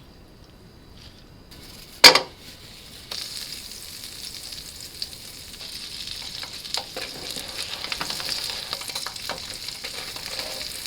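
Food frying in a hot pan: a sharp clack about two seconds in, then a steady sizzle with scattered small clicks of stirring.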